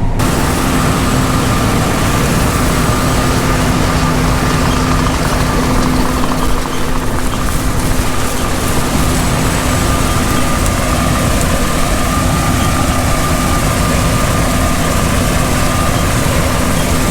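John Deere S780 combine running steadily under harvest load. A loud, constant machine noise carries a steady hum from the engine and threshing system.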